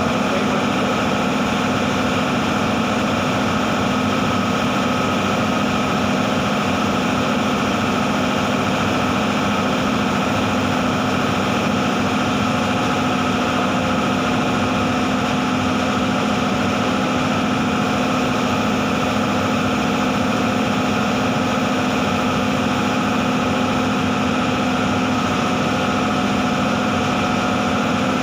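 Paint spray booth's extraction fan running steadily: a constant loud hum with a few steady tones over an even rush of air.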